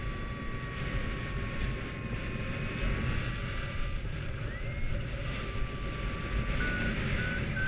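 Wind buffeting the camera's microphone in flight, with a paragliding variometer sounding a steady tone. Near the end the vario switches to short beeps that rise in pitch, its signal that the glider is climbing in lift.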